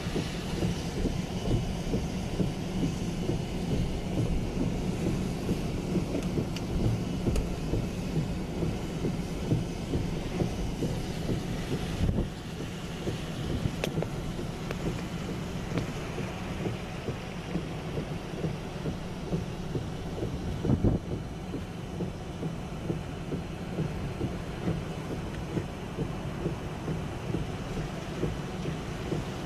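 Steady rumble of road and wind noise inside a moving car in hurricane wind and driving rain, with a couple of sharp knocks partway through.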